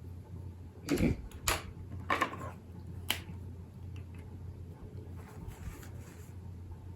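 A few sharp clicks and knocks, four in the first three seconds, one with a short rustle, as small objects are handled on the desk, over a steady low hum.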